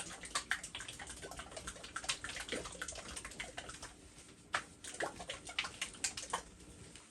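Rapid, irregular clicking and crackling, as of something being handled close by. It starts suddenly and thins out near the end.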